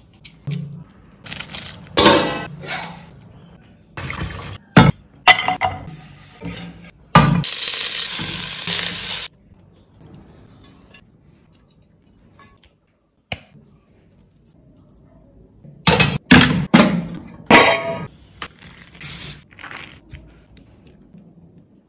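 Cooking sounds from biryani preparation in a steel pot: metal utensils clinking and clattering against the pot in a series of short knocks, a dense rushing noise for about two seconds some seven seconds in, then a long quiet spell before another cluster of clatters near the end.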